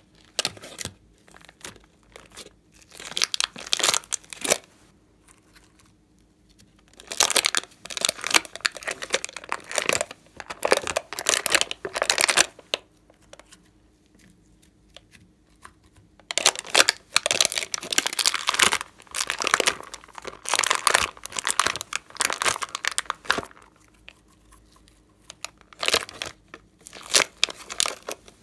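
Pink slime being peeled out of the cells of a thin clear plastic tray: crinkling plastic and sticky tearing sounds. They come in four bursts of a few seconds each, with short pauses between.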